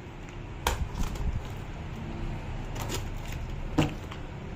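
A knife slitting packing tape on a cardboard box, with scrapes and several sharp knocks as the box is handled. The loudest knock comes near the end as the box is turned.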